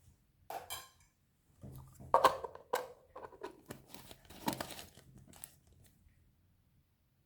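Slime being handled at close range: a run of sharp crackles and clicks, loudest about two seconds in, fading out after about five and a half seconds.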